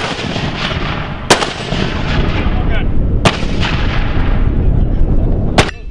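Mortar rounds being fired: four sharp reports about two seconds apart, each trailing off into a long rolling rumble, over a heavy low rumble that carries on between the shots.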